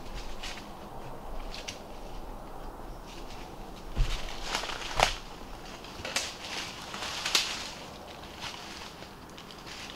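Irregular light crackles and rustles, with a few sharper snaps about four, five and seven seconds in.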